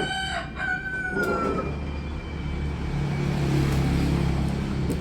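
A long animal call with a stack of overtones, falling slightly in pitch before it ends about one and a half seconds in, followed by a low steady hum.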